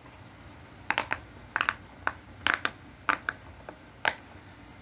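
Silicone pop-it fidget toy having its bubbles pressed: a quick, irregular series of sharp pops, about two a second.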